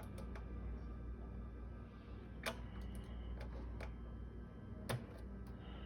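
A few scattered light clicks and taps of hand work at the unit, two sharper ones about two and a half and five seconds in, over a faint steady low hum, while main power to the unit is checked dead.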